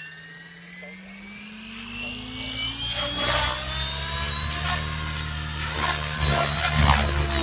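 Logo 600 SX v2 electric RC helicopter with a Scorpion brushless motor spooling up. The motor and gear whine rises in pitch and gets louder over the first three seconds, then holds steady with the rotor's whoosh as the helicopter lifts off and hovers.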